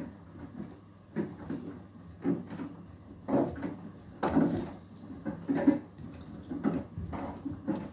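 Beko WTK104121W washing machine drum turning the wet load in the final rinse of an Eco 40 wash, with a swish and thud each time the laundry drops, one or two a second.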